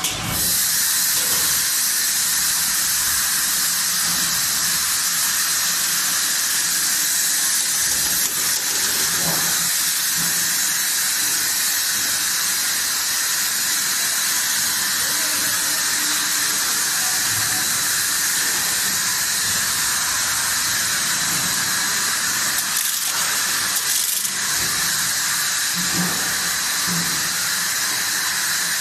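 Steady hiss from a running 5-gallon water bottle washing, filling and capping machine, with a few faint knocks along the line.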